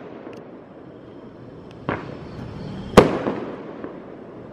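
Fireworks exploding in the distance: two sharp bangs about a second apart, the second the louder, each trailing off in a rolling echo, with faint crackling between.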